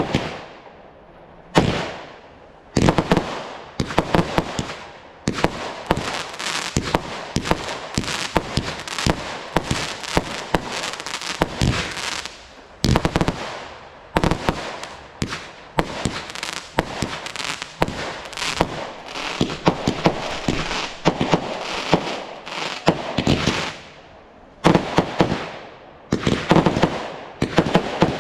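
Fireworks display: a rapid, dense run of shell bursts and crackling, with bangs following one another almost without pause. There are short lulls about a second in and again near the end.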